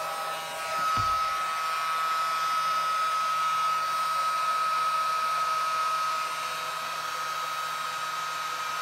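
Battery-powered air pump whirring steadily with a constant high whine as it inflates a Wubble Bubble ball. There is a brief low thump about a second in, and the pump gets slightly quieter after about six seconds.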